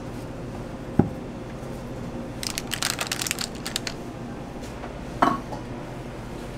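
Food-prep handling noises at a street-food counter: a sharp knock about a second in, a stretch of rattling and crackling a little later, and a second knock with a brief ring near the end, over a steady low hum.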